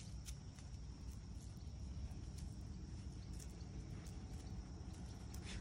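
Steady high-pitched insect drone over a constant low rumble, with a few faint clicks as small dogs scuffle on sand.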